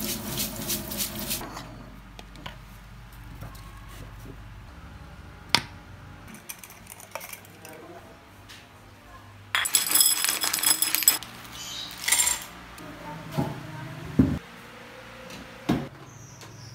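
Kitchen handling sounds: water running and a brush scrubbing at a sink at first, then glass jars and containers clinking and knocking. A dense clattering rattle comes about ten seconds in, and a few sharp knocks near the end.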